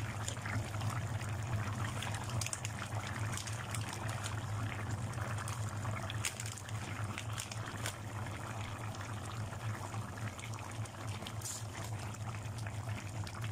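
Thick coconut-milk curry bubbling and popping in a pan as it simmers down to thicken, with a spoon stirring through it at times. A steady low hum runs underneath.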